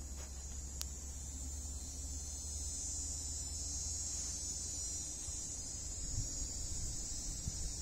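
Steady, high-pitched drone of an insect chorus, growing a little louder midway.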